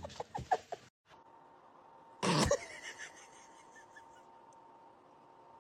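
A pet animal's single short, loud call about two seconds in, over faint room hiss with a steady thin tone.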